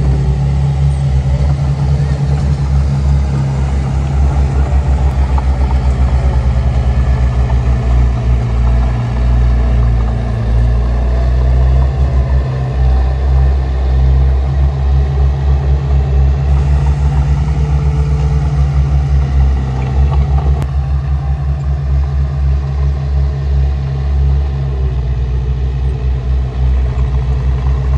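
Heavy diesel earthmoving machinery running continuously with a low, steady drone that throbs.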